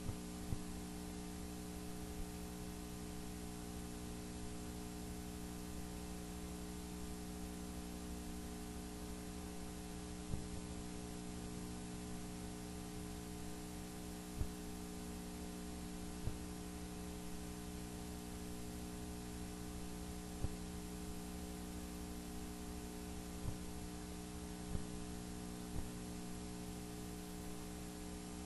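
Steady, low-level electrical hum made of several steady tones over a faint hiss, with a few faint clicks scattered through.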